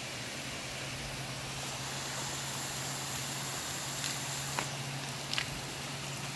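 Steady outdoor ambience: a constant rushing hiss with a low, steady hum under it, and a few faint clicks between about four and five and a half seconds in.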